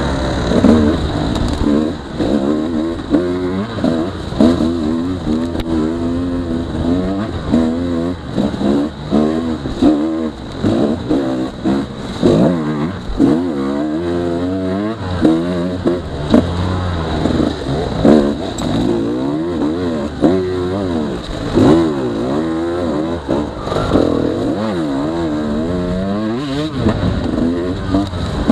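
KTM 150 XC-W's single-cylinder two-stroke engine revving up and down again and again as the throttle is worked at low speed, with occasional knocks.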